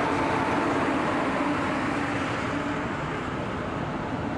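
Regional passenger train hauled by a DB class 143 electric locomotive rolling past, a steady rumble of wheels on rails with a faint whine, slowly fading as it moves away.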